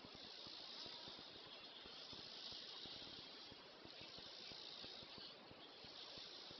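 Near silence: a steady recording hiss with faint low crackling, and no voices.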